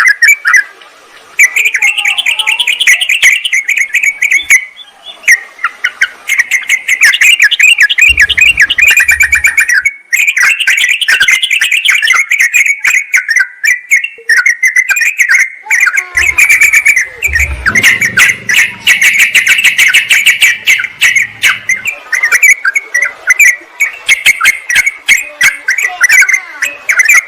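Yellow-vented bulbuls (trucukan) chattering and calling excitedly in a loud, rapid, almost unbroken stream of bubbling notes: agitated calls of the kind played as a lure to draw wild bulbuls in. There is a faint low rumble underneath for a few seconds near the middle.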